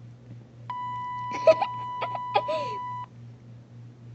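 A steady, high censor-style bleep tone sounding for about two seconds, with a voice speaking under it.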